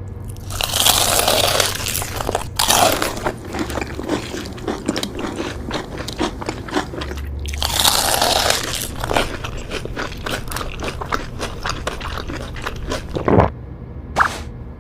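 Crisp fried food being bitten into and chewed: two long crackly bites, each followed by a run of rapid crunching chews. A brief thud near the end.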